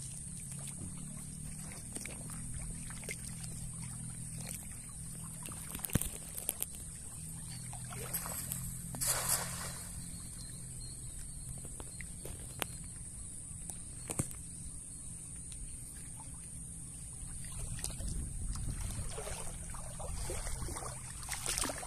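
Water sloshing around the legs of a person wading in a shallow pond, with a cast net landing on the water in a splash about nine seconds in. A steady high-pitched hiss runs underneath.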